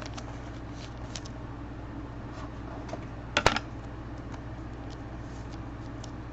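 Light clicks and taps of trading cards being handled, with one sharper click about three and a half seconds in, over a steady low hum.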